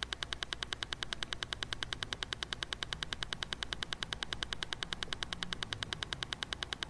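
A rapid, steady clicking pulse, about ten clicks a second like a very fast metronome: the background beat that Silva Method meditation recordings use to pace the listener toward the alpha level.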